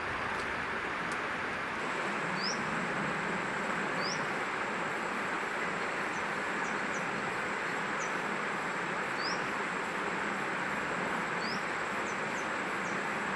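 Outdoor ambience: a steady rushing hiss, with a thin, high, continuous insect whine that starts about two seconds in. A bird gives four short, quick upward chirps, spread out over the rest of the clip.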